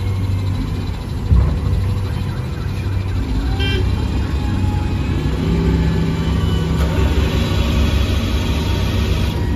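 SDLG L958H wheel loader's diesel engine running steadily under load as it dumps coal into a dump truck and backs away, with a single heavy thump about a second in.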